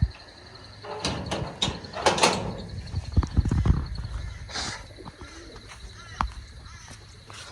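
Irregular knocks and clatters, several quick sharp ones in the first couple of seconds, heavier low thuds around the middle, and a single knock near the end.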